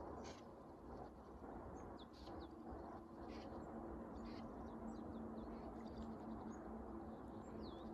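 Scattered short bird chirps and calls, some sliding quickly in pitch, over a faint steady low hum of outdoor background.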